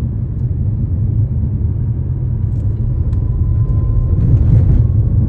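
Steady low rumble of a moving vehicle, with a faint steady whine on top.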